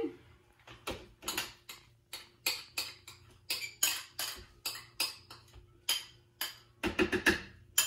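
A kitchen utensil scraping and tapping pumpkin purée out of a small cup into a food processor bowl. The short scrapes and knocks come about two a second, with a quick flurry of taps near the end.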